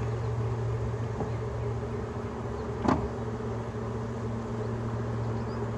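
Honeybees from a freshly installed package buzzing around the open hive in a steady hum, with a single sharp knock about three seconds in.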